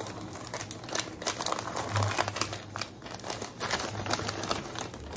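Wrapping paper crinkling and rustling in irregular crackles as it is folded and creased around a gift by hand.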